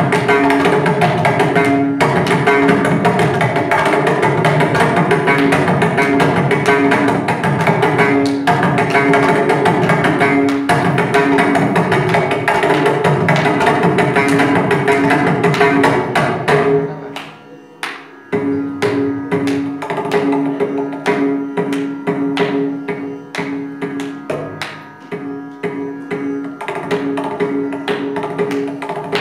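Mridangam solo (layavinyasam) in misra chapu tala: fast, dense strokes, then a brief break about 17 seconds in, after which the strokes come sparser and spaced out, with the ringing tonic strokes standing out over a steady drone.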